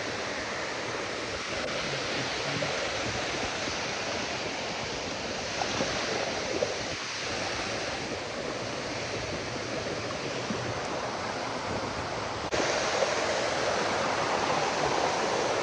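Water rushing steadily down a waterfall cascade. Near the end it cuts to a louder, closer rush.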